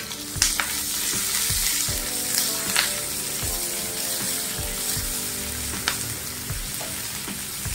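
Sliced onion and curry leaves sizzling steadily in hot mustard oil in a non-stick kadai, stirred with a silicone spatula. A few light knocks of the spatula against the pan.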